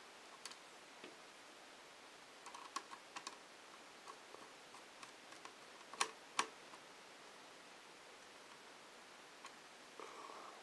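Scattered light clicks and taps of small parts being handled and fitted on an opened Dell Inspiron 1420 laptop chassis, with a quick cluster about three seconds in and two sharper clicks about six seconds in.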